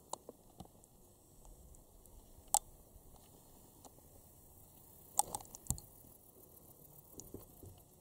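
Faint outdoor background hiss with scattered sharp clicks and taps: a single loud click about two and a half seconds in, a quick cluster around five seconds in, and softer ones near the start and near the end.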